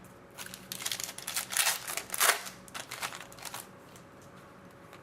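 Hockey trading cards and their pack wrapping being handled: a quick run of rustles, flicks and snaps for the first three and a half seconds, loudest about two seconds in, then it settles.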